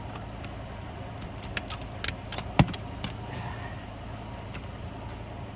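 Metal clinks and clicks from ratchet straps and their hooks being handled and fastened around a tire, a quick cluster about halfway through, over a steady low hum.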